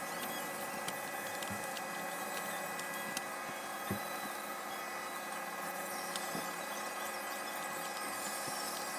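Mini component system's CD mechanism whirring steadily, with a few faint clicks, as it tries and fails to read a disc through a dust-fouled optical lens.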